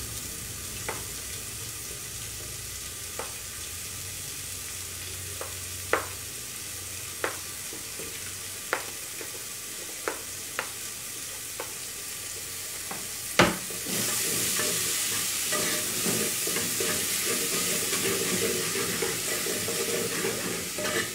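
A wooden spoon knocks and scrapes as chopped onion is pushed off a plastic cutting board into a pot of hot oil and browned garlic, with scattered sharp taps about every second or so. About 13 seconds in there is one loud knock, and then a steady sizzle sets in as the onion frys and is stirred.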